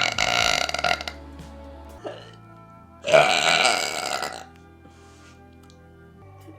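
A woman's loud, deep burps. One carries over from just before and ends about a second in; a second long burp comes about three seconds in and lasts about a second and a half. Quiet background music plays underneath.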